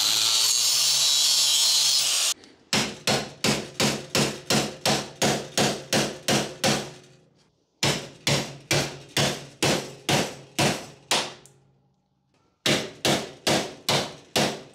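Angle grinder with a cutoff wheel cutting through the rusted steel frame rail, stopping about two seconds in. Then runs of sharp hammer blows on a chisel set against the steel, about three a second, with two short pauses, knocking off the pieces cut from the frame rail.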